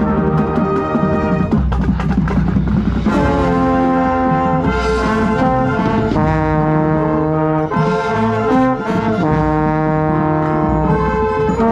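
High school marching band playing loud brass with drums. Dense drum hits fill the first three seconds, then the brass holds long chords that shift several times.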